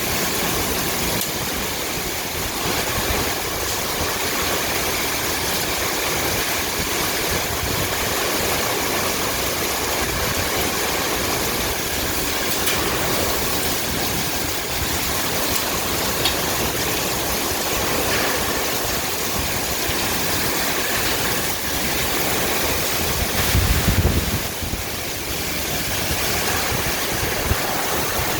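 Heavy rain pouring down in a steady, even hiss. A brief low rumble rises and fades about three-quarters of the way through.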